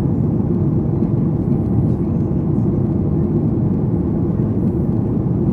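Boeing 737 MAX 8 cabin noise heard from a window seat during descent: a steady, low rumble of airflow and the CFM LEAP-1B engines.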